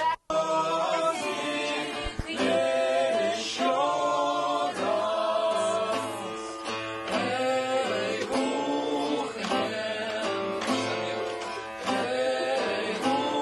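A man singing a song while playing an acoustic guitar. The sound drops out for a split second just after the start.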